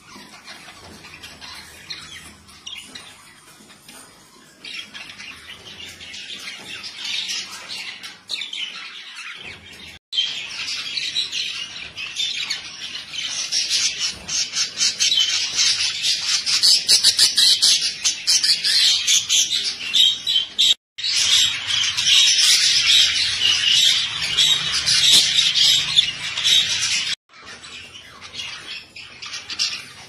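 A flock of budgerigars chattering, chirping and squawking in a rapid, continuous warble. It grows much louder about a third of the way in, with a few sudden breaks.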